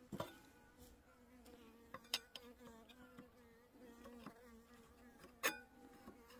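Korean native honeybees (Asian honeybees) buzzing in flight around the hive, a faint steady hum. A few light knocks break in, one near the start, one about two seconds in and one about five and a half seconds in.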